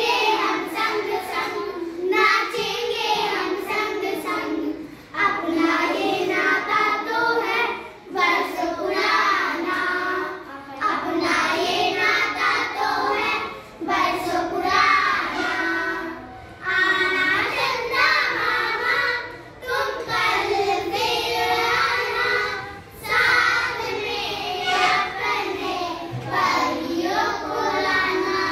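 A group of young girls singing a Hindi children's song together in unison, line by line, with short pauses for breath between phrases.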